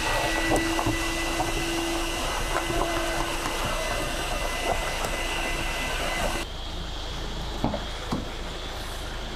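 A vacuum cleaner running steadily with a low hum and a high whine, cleaning out the car's interior. It cuts off about six and a half seconds in, leaving a quieter background with two light knocks.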